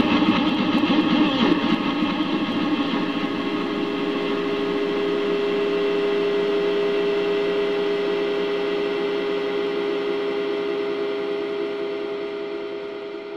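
A Yamaha PSR-E233 keyboard sound effect layered over itself many times, merging into a dense, buzzing drone of held tones. It is rough and wavering at first, settles into a steady hum, then fades out near the end.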